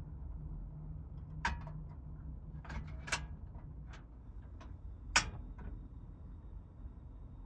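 A handful of sharp clicks and knocks from things being handled in a van's small kitchen, spread over a few seconds with the loudest about five seconds in, over a steady low hum.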